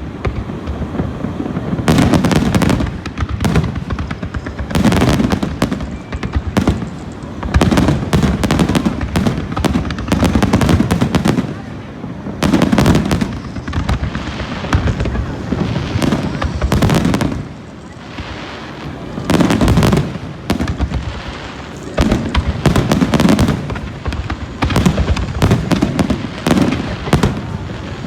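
Fireworks display: many shells bursting with booms and sharp crackling, coming in dense volleys with brief lulls between them.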